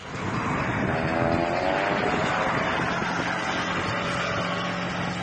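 Spektr-Aero SP-30 light aircraft's propeller engine climbing in pitch as it throttles up over the first two seconds or so, then running steadily at high power for a takeoff run along a road. A steady rushing noise runs under it.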